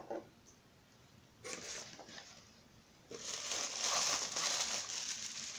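A hand rummaging through crinkle-cut paper shred packing filler in a cardboard box: a short rustle about a second and a half in, then a steady dry crinkling rustle from about three seconds in.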